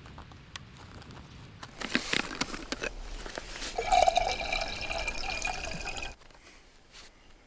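Water poured from a canteen into the aluminium base chamber of a stovetop moka pot: a splashing, gurgling fill that starts about two seconds in and stops abruptly about six seconds in.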